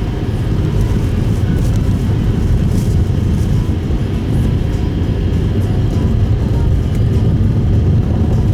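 Steady low rumble of tyre and road noise inside a Subaru Impreza Sport (GP7) car cabin while driving at speed.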